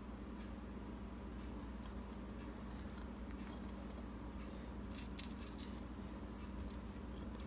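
Faint crisp clicks and crunches of bell pepper and onion chunks being pushed onto a wooden skewer, in small clusters about three seconds in and again about five seconds in, over a steady low hum.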